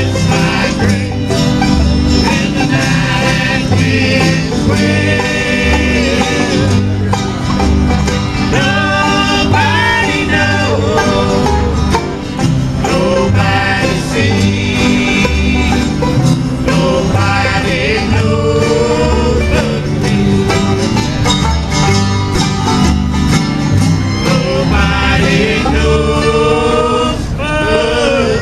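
Live bluegrass band playing a number: plucked strings and a melody line over a steady alternating bass, without a break.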